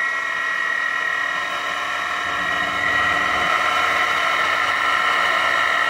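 Chevalier FCL-1840 CNC lathe running its program in auto mode with the spindle at about 2,100 rpm. It makes a steady high whine over a lower hum, growing slightly rougher and louder from about two seconds in.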